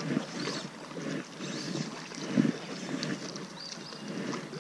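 Wind buffeting the microphone in uneven gusts, with water sloshing, while a hooked trout is played on a fly rod.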